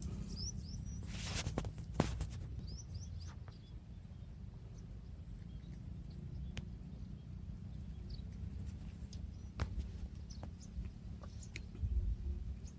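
Short, high bird chirps in a few quick runs, near the start and again about three seconds in, with scattered sharp clicks and a low steady rumble underneath.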